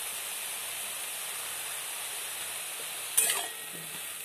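Potatoes and yardlong beans frying in oil in a kadai, sizzling steadily. About three seconds in, a metal spatula clatters against the pan once as it stirs.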